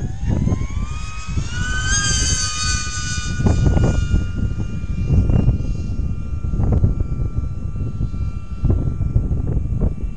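Electric twin-motor RC plane flying past, its two brushless motors and propellers making a high whine at two close pitches that rises over the first couple of seconds, then holds and slowly sinks. Wind buffets the microphone with a low rumble and gusty knocks underneath.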